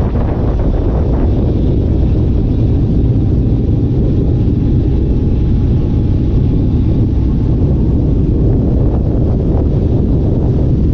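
Loud, steady vehicle engine rumble mixed with wind buffeting the microphone, holding even without a break.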